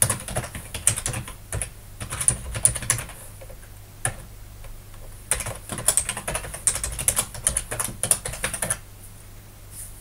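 Typing on a computer keyboard: two quick runs of keystrokes with a short pause between them, stopping about a second before the end.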